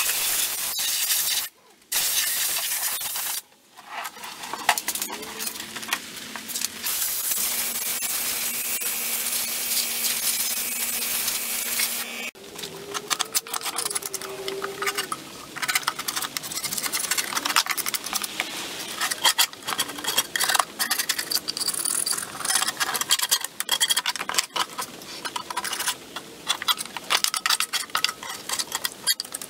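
A compressed-air blow gun hisses in two short blasts and then one long steady blast, blowing debris off a lawn mower. About twelve seconds in it stops, giving way to crackling, scraping and rustling as caked dried grass clippings are pulled and scraped from the underside of the mower deck.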